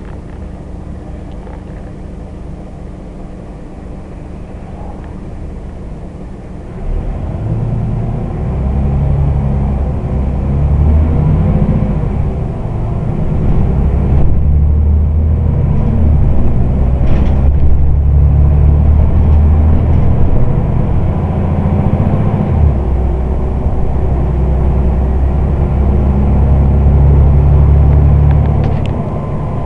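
Scania Omnidekka double-decker bus engine idling steadily for several seconds, then louder as the bus pulls away and drives on. The low engine note changes in steps as it goes.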